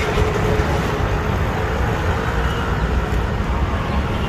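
Steady rumble of road traffic passing close by.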